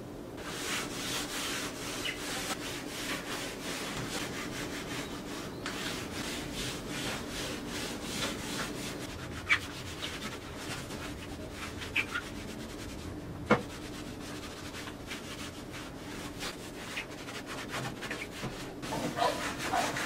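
A cloth rubbing wood wax into wooden deck boards in repeated strokes, with a few sharp clicks along the way.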